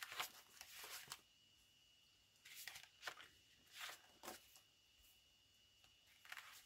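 Sheets of scrapbook paper and sticker sheets rustling as they are lifted and turned over by hand, in two short bouts of handling.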